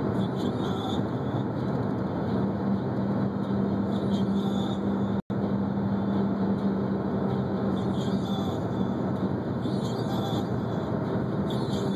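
Steady road and engine noise of a car driving at speed, with a low engine drone that grows stronger about two seconds in. The sound cuts out for a split second about five seconds in.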